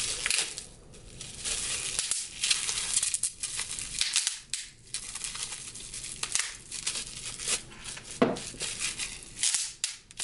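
Plastic bubble-wrap packaging crinkling and rustling as it is pulled off a small glass dropper bottle, with a sharp pop near the end as a bubble is squeezed between the fingers.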